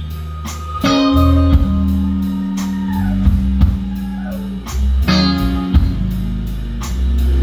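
Live blues-rock band: an electric guitar playing lead lines with bent notes over held bass notes and drums.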